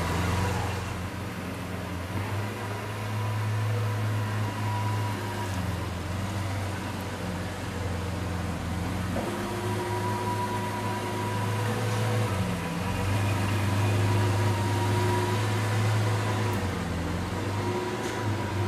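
Lamborghini Veneno Roadster's 6.5-litre V12 idling steadily with a low, even drone, with no revving.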